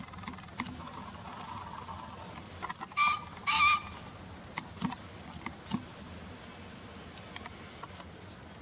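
Male green pheasant crowing: two loud, harsh notes close together, about three seconds in. A few faint clicks follow.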